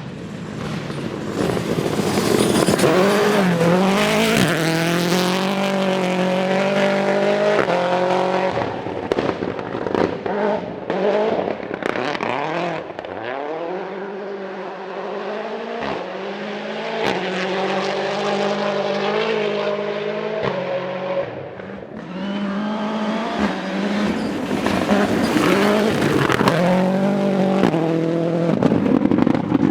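Toyota Yaris AP4 rally car's engine at full throttle on a stage, its pitch climbing and dropping sharply at each gear change, with sharp cracks now and then. The sound dips and returns several times as the car brakes and powers out of corners.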